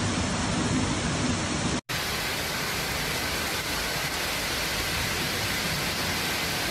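Water pouring in sheets through a collapsed ceiling, a steady rushing. After a short break about two seconds in, a steady, even hiss of torrential rain falling on trees.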